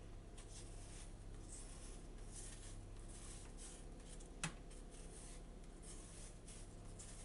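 Knife paring the peel off an apple: faint, repeated scraping strokes of the blade through the skin, with a single sharp click about four and a half seconds in.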